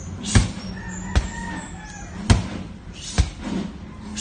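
Medicine ball slammed hard onto the gym floor over and over, four sharp thuds about a second apart.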